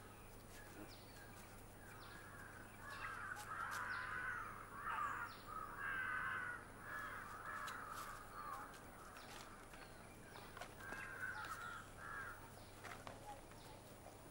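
Crows cawing, a run of harsh calls that overlap and grow louder in the middle, then thin out toward the end.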